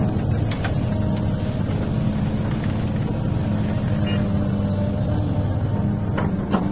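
XCMG excavator's diesel engine running steadily under working load, with a few short knocks about half a second in, around four seconds in and near the end.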